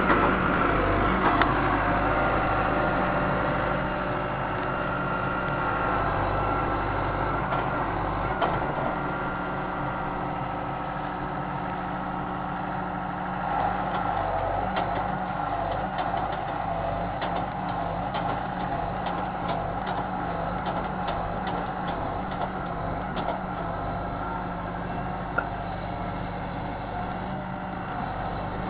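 John Deere 160C excavator's diesel engine running steadily, with a whine that rises and falls in pitch as the machine works. Light clicks and knocks come in the middle and later part.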